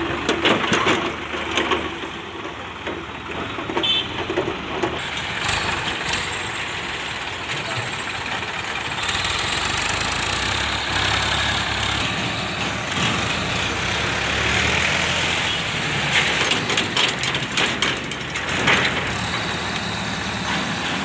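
Diesel tractor engine running under the load of a hydraulic tipping trolley being raised to dump its load of soil, growing louder about a third of the way in, with a few short clatters.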